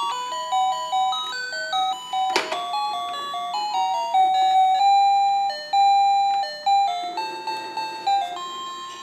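Electronic chiming tune from a baby bouncer's musical toy bar: a simple melody of single stepped notes. A sharp click sounds about two and a half seconds in.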